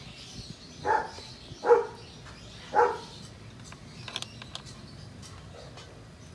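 A dog barks three times, about a second apart. A few faint light clicks follow about four seconds in.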